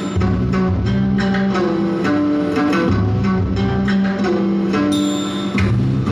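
Music with plucked-string notes over a bass line, played from a USB MP3 player through a 12-volt DC stereo amplifier.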